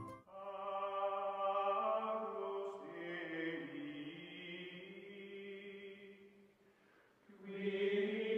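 Outro music of chant-like held voices: long sustained notes that die away about six and a half seconds in and swell back up about a second later.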